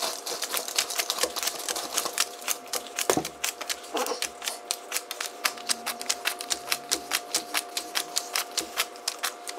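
Banknotes being counted by hand, each bill flicked or snapped in a quick, even rhythm of about five a second.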